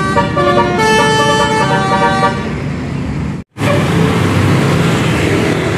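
Bus "telolet" Basuri musical horn playing a quick tune of short changing notes, stopping about two seconds in. Steady traffic noise follows, broken briefly by a sudden dropout in the sound.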